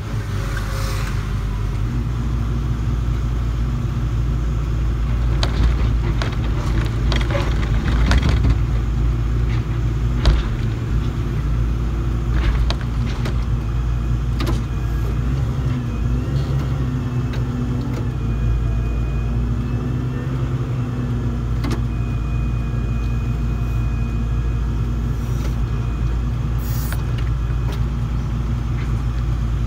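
Excavator's diesel engine running steadily under the cab, with scattered knocks and snaps as the bucket works through brush and soil, the sharpest about a third of the way in. A faint high whine comes in around the middle.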